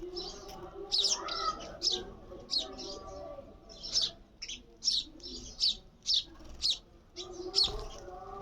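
A sparrow chirping repeatedly: short, sharp, high chirps at about two a second.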